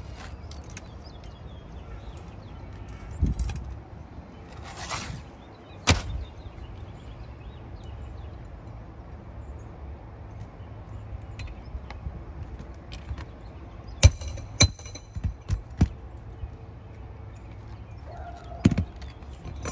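Sharp metal strikes of a hammer on a roof snake, the flat bar driven under asphalt shingles to reach the nails. One strike comes about a third of the way in, a quick run of five in the last third, and one near the end, over a steady low rumble.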